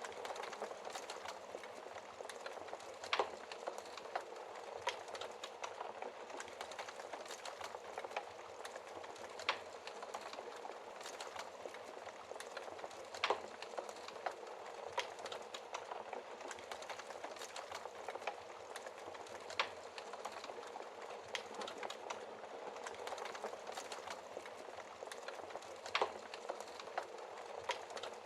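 Wood fire crackling in a fireplace: a steady dense patter of small crackles, with a sharper pop of burning wood every few seconds.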